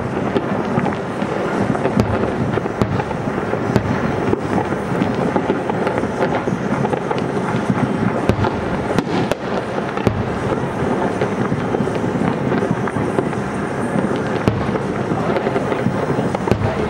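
Aerial firework shells bursting in a continuous barrage: a rolling rumble and crackle with many sharp bangs at irregular intervals.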